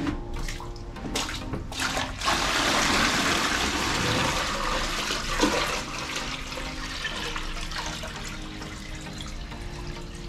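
Water poured from a plastic bucket into the plastic water tank of a 12 V portable car washer, splashing and gushing in. A few knocks come first; the pour is loudest from about two seconds in, then settles into a steadier, lighter flow as the tank fills.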